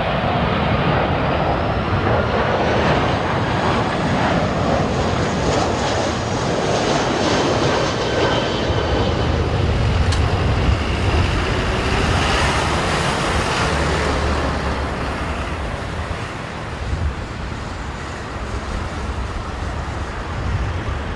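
Jet airliner's engines passing low on final approach: a steady broad roar with a thin whine that slides down in pitch, easing off in the last few seconds.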